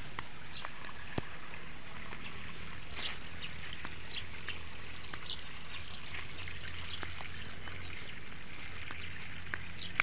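Faint trickling water with scattered light ticks over a steady low hum.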